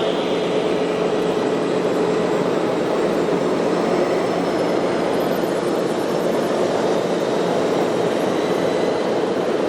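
Steady whirring of a radio-controlled model vehicle's small electric motor and gearbox, running at an even speed with a faint high whine.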